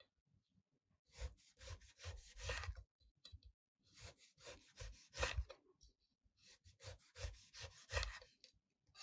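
Kitchen knife slicing a sudachi, a small Japanese citrus, into thin rounds on a wooden cutting board. Short scraping strokes through the rind, each with a soft knock on the board, come in three runs of about two seconds each.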